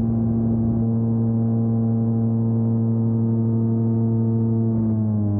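Rotax engine of a Dominator gyroplane droning steadily in flight, dropping in pitch near the end as power comes off.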